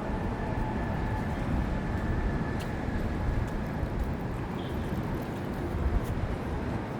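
Busy city street noise with passing traffic, a steady low rumble and a faint high tone held through the first few seconds.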